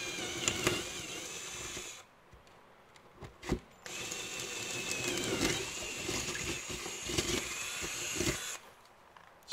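Power drill boring a hole through a fire engine's roof panel in two runs. The first run stops about two seconds in, a short knock follows, and the motor starts again about four seconds in, its whine sagging in pitch as the bit bites, until near the end.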